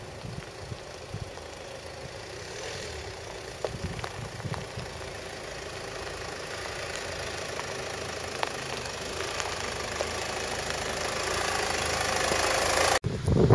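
Land Rover Freelander 2 crawling over a rough gravel track, engine running at low revs with tyres crunching on stones, growing louder as it comes up to and past the microphone. The sound cuts off abruptly near the end.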